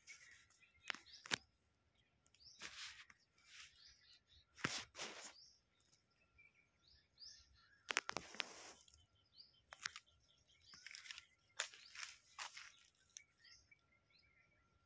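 Quiet outdoor ambience of faint, scattered small bird chirps and a faint steady high-pitched tone, broken by intermittent short rustling crackles.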